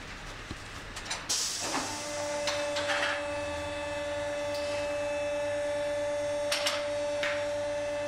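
Electric car lift motor starting about two seconds in, after a couple of short knocks, and running with a steady hum, with a few light clicks over it.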